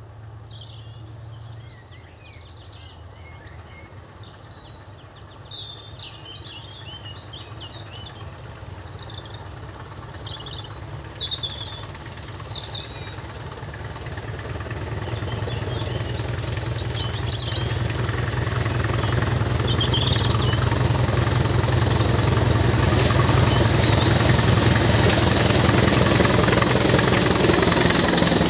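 Preserved heritage diesel locomotive approaching, its engine growing steadily louder through the second half, with a thin high whine slowly rising in pitch. Birds chirp in the first half.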